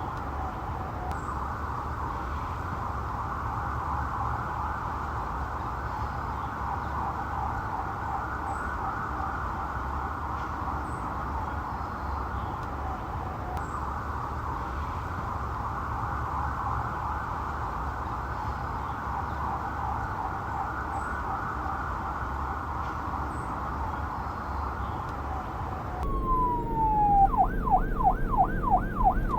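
Police siren yelping, heard distant and smeared, over a low rumble of wind and traffic. Near the end the sound cuts to a louder, clearer siren: a falling wail, then a fast yelp of about four sweeps a second.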